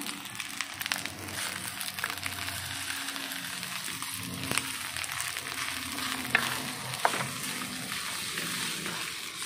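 Rice and egg sizzling in a metal wok as a wooden spatula stirs and scrapes through them, with a few sharp clacks of the spatula against the pan in the second half.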